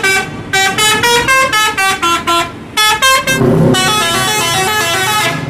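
Indonesian intercity bus's musical 'telolet' horn playing quick melodic runs of stepped notes, in several phrases with short breaks about two and a half and three seconds in. Near the end comes a fuller run of notes over a low rumble.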